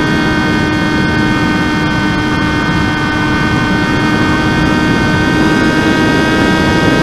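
Electric motor and propeller of a Teksumo RC flying wing in flight, a steady high whine holding nearly one pitch, with wind rushing over the microphone.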